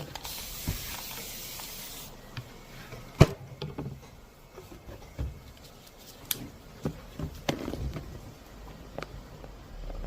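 Wooden frame pieces being handled and test-fitted: scattered light knocks and clicks, with one sharp knock about three seconds in. A high hiss runs through the first two seconds, then stops.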